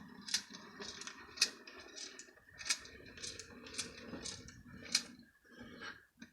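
Working windscreen-wiper mechanism of a 1960s Corgi Toys Mercedes-Benz 600 Pullman model car, clicking about twice a second over a soft grinding whir as the wipers sweep back and forth. It stops shortly before the end.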